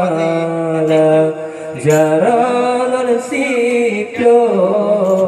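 Male chanting in a long, ornamented Acehnese vocal line, the sung part of a rapai group's routine, with held notes sliding from one pitch to the next.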